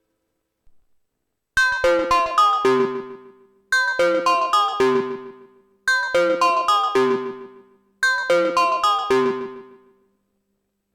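Korg Minilogue analog synthesizer playing a plucky preset: a short phrase of quick, fast-decaying notes, repeated four times.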